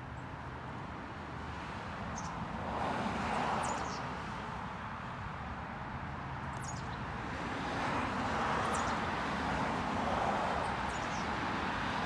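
Road traffic: cars passing, their noise swelling and fading twice, with a few brief high bird chirps.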